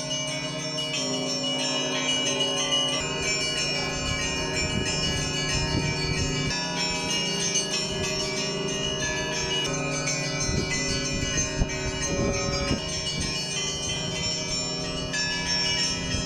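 Church bells ringing, several bells sounding together, their tones ringing on between repeated strikes.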